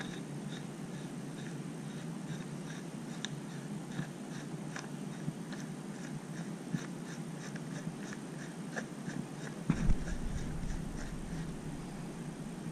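Brass fittings being threaded and tightened onto the vacuum pump's T fitting: light, regular metallic clicks about three a second over a steady low hum, with one heavier knock about ten seconds in.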